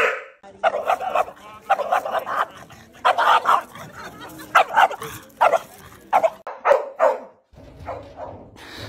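A dog barking repeatedly: about a dozen loud barks, the first few longer and drawn out, the later ones short and quicker, stopping about seven seconds in.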